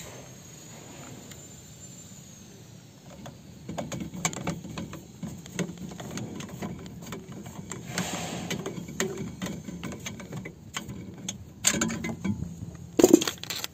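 Clicks and knocks of an air cleaner housing being unclipped and opened by hand to take out the air filter element: a scatter of small clicks from about four seconds in, with two louder knocks near the end.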